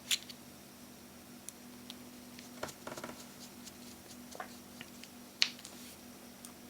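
Scattered small clicks and taps of a small screwdriver and phone parts being handled on a work surface while the phone is closed up with its bottom pentalobe screws, with a short rattly run of clicks about three seconds in. The two loudest clicks come right at the start and about five and a half seconds in, over a faint steady hum.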